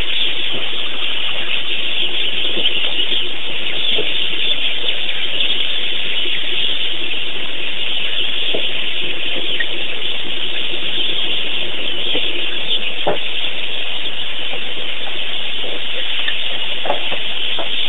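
Steady, loud hiss with a few faint ticks; no bird call stands out.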